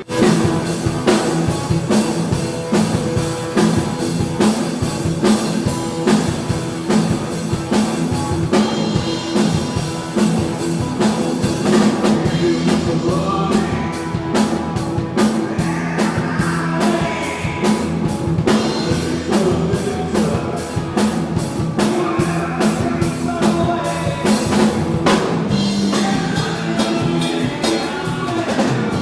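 Live rock band playing a driving rock song, with the drum kit keeping a steady beat and a voice singing over the band.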